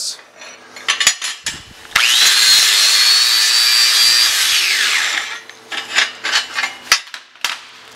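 Angle grinder with a wire wheel brushing the mill scale on the edge of a hot-rolled steel plate for about two seconds, a loud scrubbing with the motor's whine rising slightly, then the whine falling away as the wheel winds down after release. A few handling knocks come before and after.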